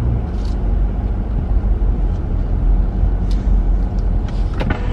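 Steady low rumble of a car running, heard from inside its cabin, with a few faint clicks near the end.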